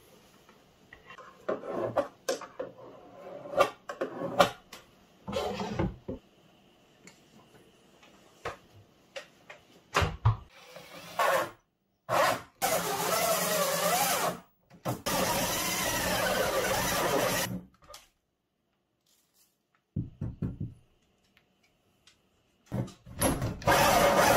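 Several knocks and clatter from handling parts in the cabinet, then a power drill runs in two bursts of about two seconds each, its pitch wavering as it bites into the cabinet's back panel. It starts again near the end.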